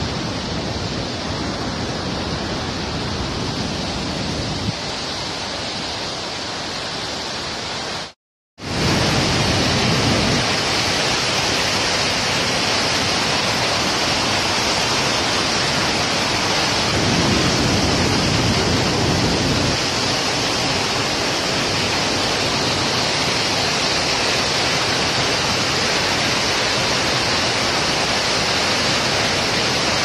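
Waterfall and white-water rapids rushing steadily. The sound drops out for a moment about eight seconds in, then returns a little louder.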